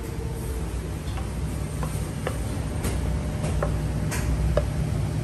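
Wooden spoon tapping against a frying pan as stir-fried noodles are pushed out into a bowl: a series of about eight light, irregular clicks over a steady low hum.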